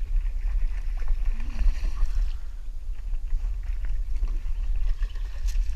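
A kayak moving on the water: a steady low rumble with scattered light knocks and clicks.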